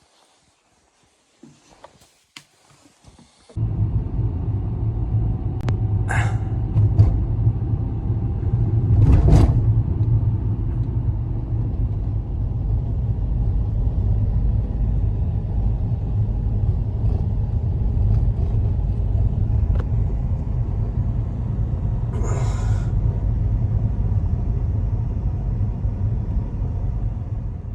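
Storm wind buffeting the microphone: a loud, steady low rumble that starts abruptly a few seconds in and runs on, with a few brief scuffs on top.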